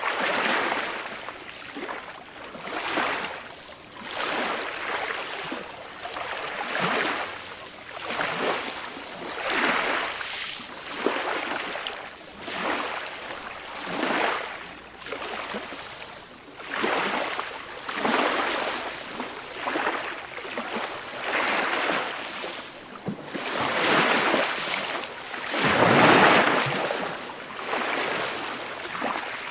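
Small waves lapping and splashing, a fresh swell of water noise every second or two, one larger splash about 26 seconds in.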